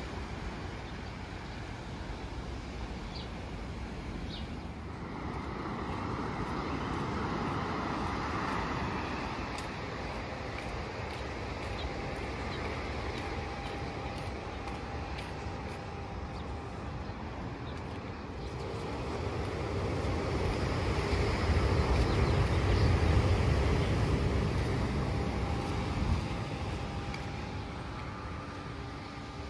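Ocean surf on a sandy beach, a steady rush of waves washing ashore. It swells twice, and the second swell, in the latter half, is louder and deeper.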